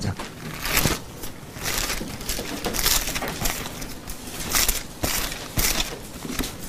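Thin Bible pages being leafed through and turned: a run of irregular papery rustles and flicks.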